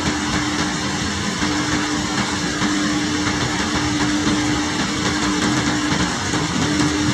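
Heavy rain pouring steadily, with a steady low hum underneath.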